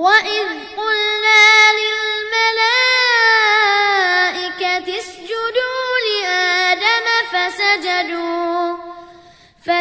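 A child's voice reciting the Quran in a melodic chant (tajweed), drawing out long gliding notes in one continuous phrase that fades out for a breath near the end.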